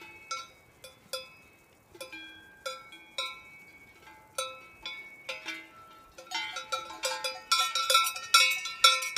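Cowbells on grazing cows clanking irregularly, each strike ringing briefly. The clanking grows busier and louder from about six seconds in.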